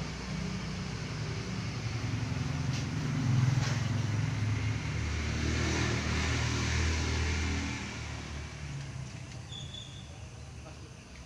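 A motor vehicle's engine passing by. It grows louder over the first few seconds, holds loudest through the middle, then fades away.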